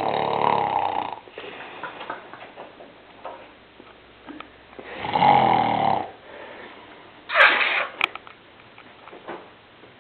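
A man snoring: two long snores about five seconds apart, with quieter breathing between. About seven seconds in, a short, sharp noisy burst, louder than the snores.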